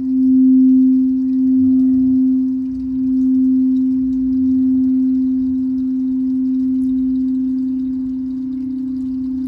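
Frosted quartz crystal singing bowl ringing with one steady low tone under a mallet. It swells and eases in slow waves for the first few seconds, then settles steadier and a little softer.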